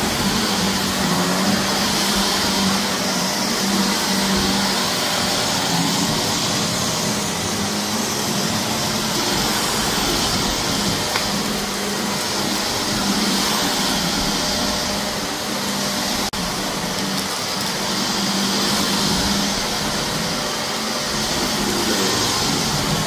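Shark vacuum cleaner running steadily on carpet: a continuous rush of suction with a motor hum that swells and fades every few seconds.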